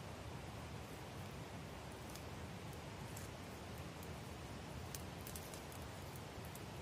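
Small wood campfire crackling faintly: scattered sharp little pops, clustered about five seconds in, over a steady faint hiss.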